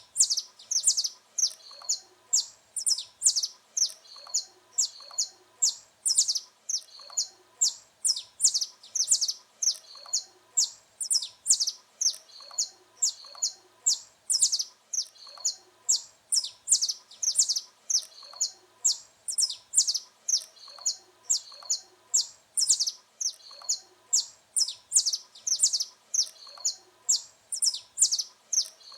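Saffron finch (canário-da-terra) singing: a rapid, unbroken run of short, sharp, high-pitched notes.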